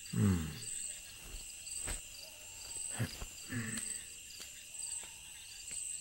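Crickets chirping steadily in a night insect chorus, with a high pulsing trill. A brief low voice sound falling in pitch comes right at the start, and there are a few faint footstep-like taps.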